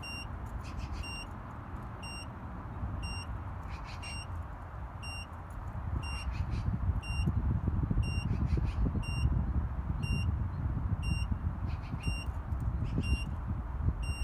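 Electronic beeper on a token-operated dump-station timer box giving short, high beeps about once a second. It is the warning that the last seconds of the one-minute token time are running out before the foot valve locks. A low rumble runs underneath and grows louder about halfway through.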